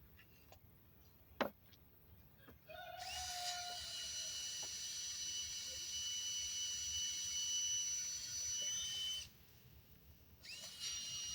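Power drill running as it pre-drills a hole in very hard wood: a steady high whine that starts about three seconds in, runs for about six seconds, stops, then starts again near the end. A single sharp click comes before it.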